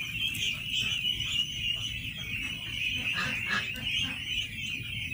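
A large flock of ducklings peeping all at once, a steady high-pitched chorus with no pauses.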